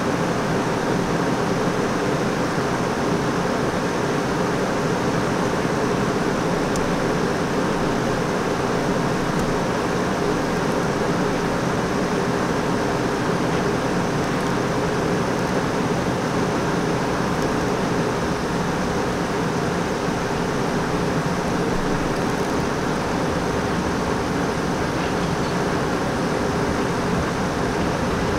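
Steady, even rumble and hum of a rail yard with a New York City subway train creeping slowly through the tracks, blended with distant traffic noise; nothing sudden stands out.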